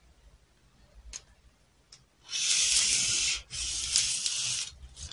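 Marker pen drawing on pattern paper: two long scratchy strokes of about a second each, starting a little over two seconds in, after a couple of faint taps.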